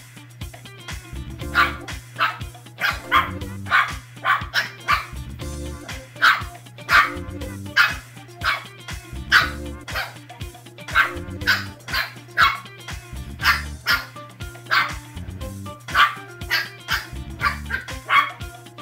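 Two-month-old Shih Tzu puppies yapping while they play-fight: a long string of short, high-pitched barks and yips, two or three a second, with a brief lull about six seconds in. Background music with a repeating bass line runs underneath.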